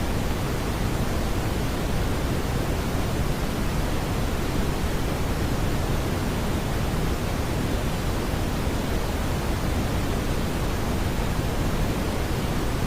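Steady smoothed brown noise: a constant even rumbling hiss, heaviest in the bass and thinning toward the treble, with no tones or beats in it.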